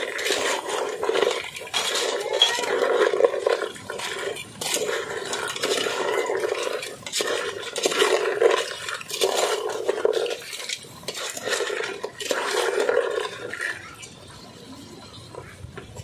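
Crabs being stirred in a metal cooking pot: the spoon and the shells scrape and clink against the pot in repeated strokes, going quieter near the end.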